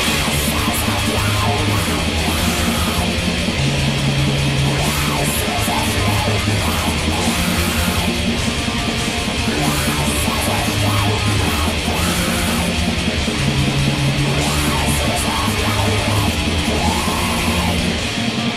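Black metal with dense distorted electric guitars, bass and programmed drums.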